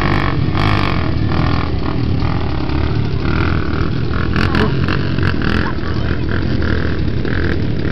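Two quad ATVs accelerating side by side down a dirt drag strip, their engines running hard, heard from the grandstand with crowd voices mixed in.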